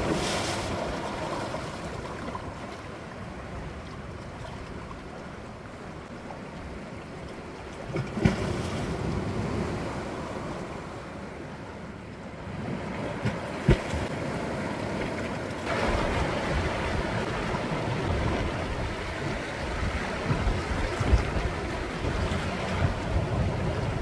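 Sea waves surging against shore rocks, the wash swelling about every eight seconds, with a couple of sharp slaps. Wind buffets the microphone.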